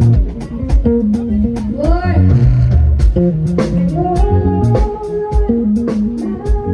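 Band music: guitar over a bass line and a steady drum beat, with a pitch bend about two seconds in and long held melody notes later.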